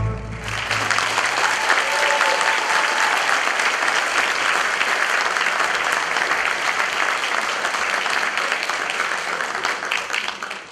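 Audience applauding, starting as the music stops and thinning to scattered claps near the end.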